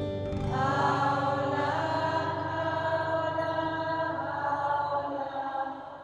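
Slow chanted mantra song: several voices hold long notes over a sustained low drone. The chord shifts about half a second in, and the sound thins out near the end.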